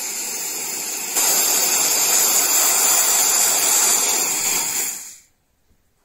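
High-pressure air hissing out of the bleed valve on a scuba-cylinder fill adapter, venting the fill hose to a PCP air rifle after charging. The hiss, with a thin high whistle in it, grows louder about a second in and dies away about five seconds in as the line empties.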